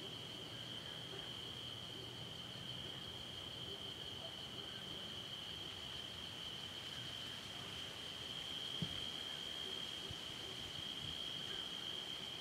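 Night insect chorus: a steady high-pitched ring, with one faint tap about nine seconds in.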